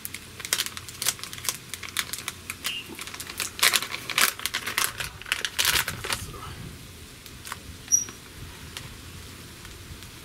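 Plastic packet of grated Parmesan crinkling as it is handled and shaken over the pan: a quick run of crackly rustles that thins out after about six seconds.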